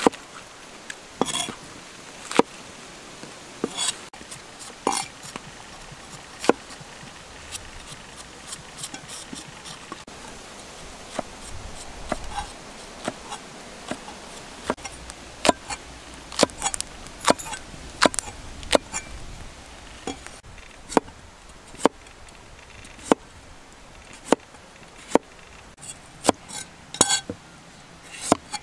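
A large knife chopping cabbage and carrot on a tree-stump cutting board: sharp, irregular knocks of the blade striking the wood, with quicker runs of strokes in places.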